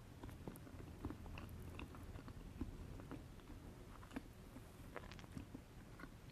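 A person chewing soft chocolate cake with mocha frosting close to the microphone: faint, scattered wet mouth clicks and smacks.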